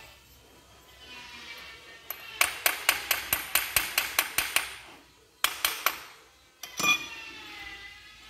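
Hammer tapping on metal: a quick run of about a dozen sharp, ringing strikes, then three more and one heavier knock. The taps come as a viscous fan clutch is worked open to reach its fluid.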